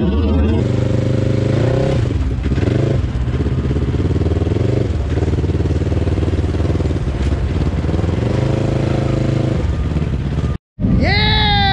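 Off-road vehicle engine running steadily, rising in revs a few times. It cuts off abruptly about a second before the end, and a different sound with a sweeping pitch follows.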